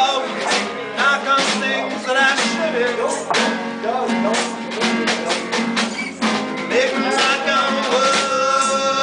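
Live acoustic band playing: strummed acoustic guitars over a steady beat of drum hits, with a bowed fiddle line gliding above.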